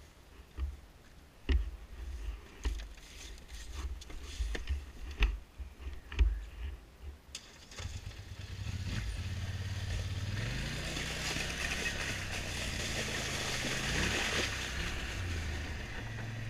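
A few scattered knocks and footsteps on ice, then an ATV engine starts about eight seconds in and runs steadily. Its pitch rises twice as the four-wheeler pulls away over gravel.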